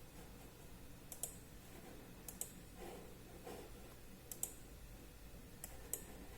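Computer mouse clicking about five times, each click a sharp paired tick of button press and release, over faint room hiss.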